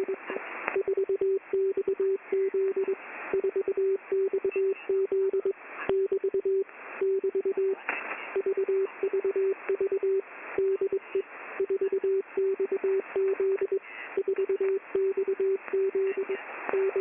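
Shortwave radio receiver picking up a Morse code signal: a single steady beep keyed on and off in short and long pulses, over hissing static with crackles.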